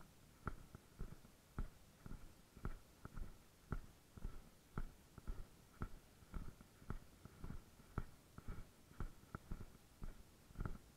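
Footsteps crunching on a gravel path at a steady walking pace, about two steps a second.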